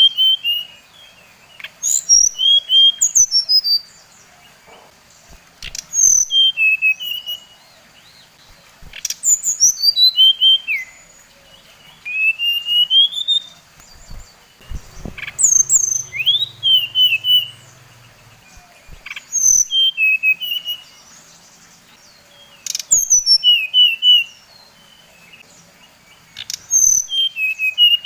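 A sikatan rimba dada coklat (SRDC, a jungle flycatcher) singing. Each phrase is a run of high whistled notes sliding downward, then a few short warbled notes, and the phrases repeat about every three to four seconds.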